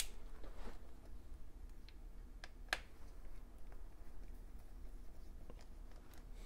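Faint scattered clicks and taps of hands and a small screwdriver working on an opened MacBook Air's aluminium case and internal parts, the sharpest click a little under three seconds in, over a steady low hum.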